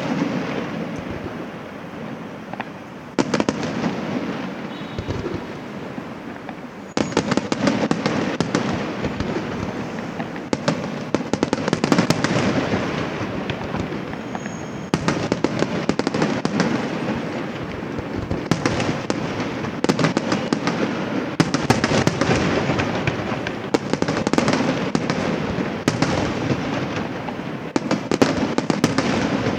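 Fireworks display: aerial shells bursting in a continuous barrage with dense crackling, growing louder and busier about three seconds in and again about seven seconds in.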